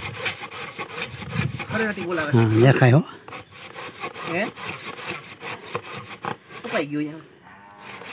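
A small hand saw cutting through a wooden branch, with rapid, even back-and-forth strokes that pause briefly about three seconds in and again near the end. A short, low call sounds over the sawing about two seconds in and is the loudest moment; a briefer one comes near seven seconds.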